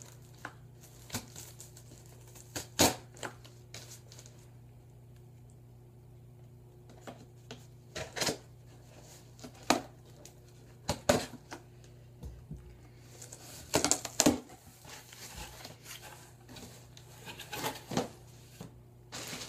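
Scissors cutting and scraping along the packing tape on a cardboard box, in scattered sharp clicks and scrapes. Near the end the box's cardboard flaps are pulled open.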